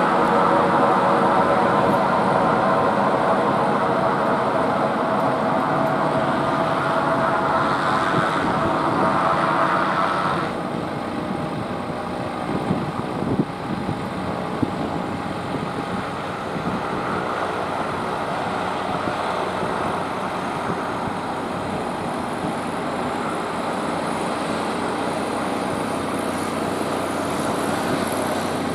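Beechcraft King Air 200 twin turboprop engines (Pratt & Whitney PT6A) running at taxi power: a steady turbine whine with propeller drone. The sound drops abruptly about ten seconds in and goes on quieter, with a few light knocks a couple of seconds later.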